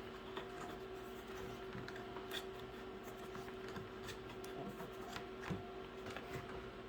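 Plastic chicken watering cup being screwed into the side of a plastic bucket: faint rubbing and scattered light clicks of plastic threads, over a steady low hum.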